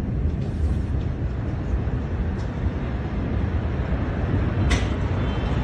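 Steady low rumbling noise, with a sharp click or knock about three-quarters of the way through.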